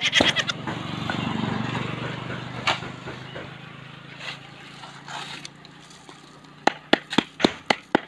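Steady low engine hum of a passing vehicle for the first few seconds. Near the end, a wooden plank starts pounding wet concrete mix into a steel hollow-block mold to compact it: quick, even blows, about four a second.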